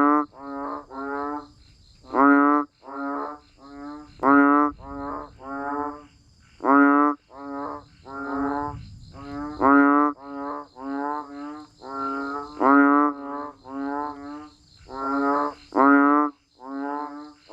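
Frogs croaking: short, rough, pitched calls in quick runs of three or four, each run opening with the loudest call and coming round every two to three seconds. A faint high chirring of insects goes on behind.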